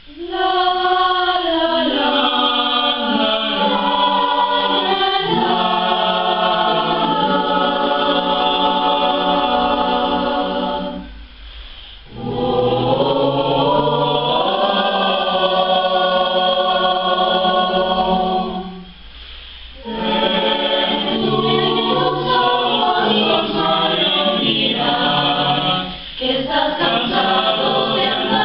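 Mixed school choir of teenage girls and boys singing a cappella in long held phrases, with two short breaks about 11 and 19 seconds in.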